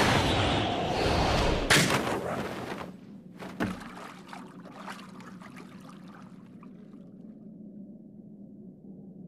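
Animated sound effects: a loud rushing noise with a sharp crash near two seconds in. It dies away into a thud and scattered drips and splashes of water, which fade out and leave a quiet low hum.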